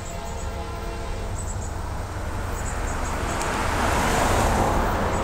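An SUV driving past on the road, its tyre and engine noise swelling to a peak about four seconds in and then starting to fade.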